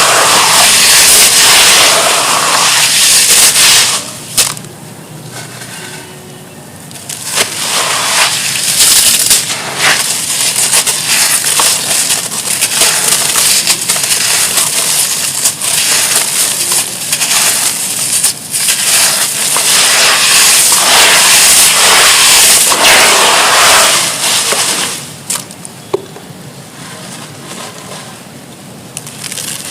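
Gritty charcoal crumbling and breaking apart in a tub of water, a loud, dense crackling hiss with scattered sharp cracks. It eases off twice, briefly about four seconds in and again near the end.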